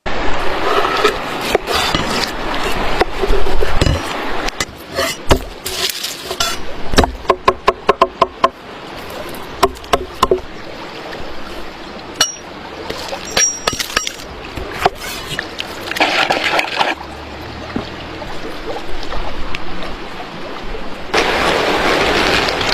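Food being prepared by hand outdoors: a string of knocks and clinks from kitchen tools, including a quick run of taps like a knife chopping on a board, with short stretches of rustling, scraping noise later on.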